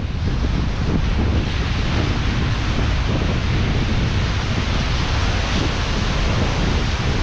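Breaking surf washing over rocks, a steady rushing hiss, with wind buffeting the microphone in a heavy low rumble.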